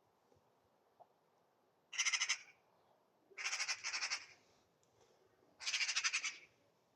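Magpie giving its harsh, rattling chatter in three rapid bursts, the scolding call of a magpie mobbing a cat.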